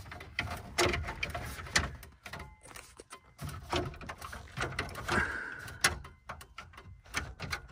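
2002 Chevy Avalanche plastic dash bezel being handled and pressed into place around the radio, with irregular clicks, taps and light knocks of trim.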